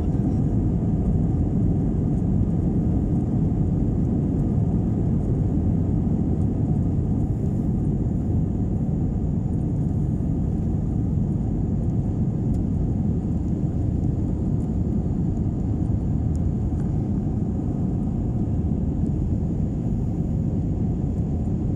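Steady low rumble of a jet airliner's engines and rushing airflow heard inside the passenger cabin at a window seat, as the plane climbs after takeoff.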